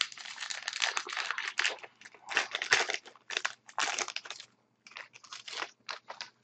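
Hockey card pack wrapper being torn open and crinkled by hand, in irregular bursts of crackling rustle that thin out to a few short crinkles near the end.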